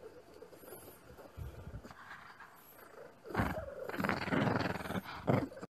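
Shih Tzu growling in play while it bites at a plush toy. The growl is low and rough at first and gets much louder about three seconds in, then cuts off suddenly.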